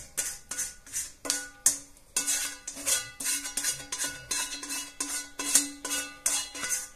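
A spoon knocking and scraping against a frying pan as tomato sauce is pushed out of it. It is an irregular run of sharp knocks, two or three a second, each leaving the pan ringing.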